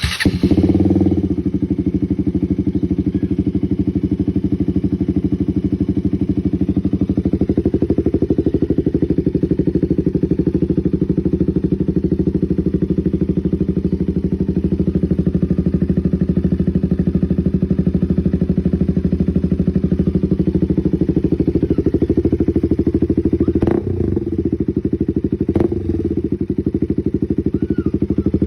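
KTM Duke 200's single-cylinder engine breathing through an SC Project aftermarket exhaust: it fires up suddenly and settles into a steady, loud idle, with two brief blips near the end.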